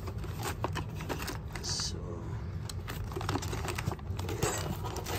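A hand rummaging through a cardboard box of small RC car parts in plastic bags: a run of irregular small clicks and rustles as bagged parts knock against each other and the box.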